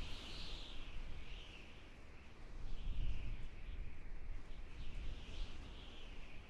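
Wind rumbling and gusting on the microphone, swelling about three seconds in, with a continuous high, wavering chorus above it.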